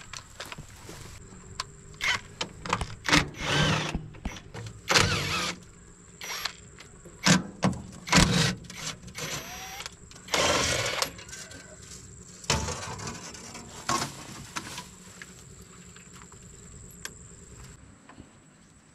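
Metal hand tools clanking, knocking and scraping against the steel underside of a Hitachi EX120-5 excavator, in irregular bursts that thin out over the last few seconds. A faint steady high whine runs behind.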